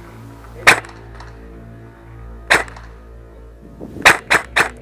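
Airsoft rifle shots: two single cracks about two seconds apart, then a fast string of single shots, about four a second, starting near the end.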